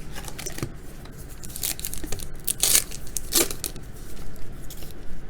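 A trading-card pack's wrapper being torn open: a run of crinkling rips, the loudest about two to three and a half seconds in.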